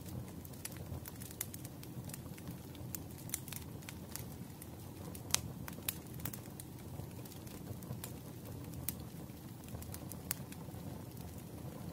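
Wood fire crackling: a steady low rush of burning logs with scattered sharp pops, two of them louder, about halfway through and near the end.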